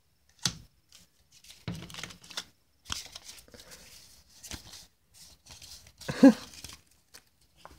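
Yu-Gi-Oh trading cards handled and fanned through in the hand: scattered soft clicks and rustles of card stock with short pauses between them. A brief vocal sound, like a short hum, comes about six seconds in.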